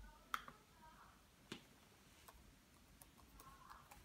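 A few sharp, isolated clicks from a laptop's touchpad and keys, the first, about a third of a second in, the loudest; otherwise near silence.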